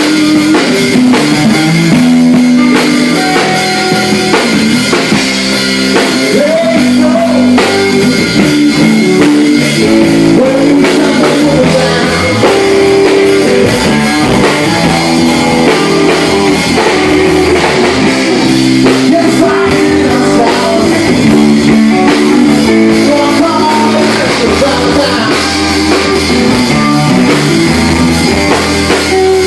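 Live rock band playing loud: electric guitars and a drum kit.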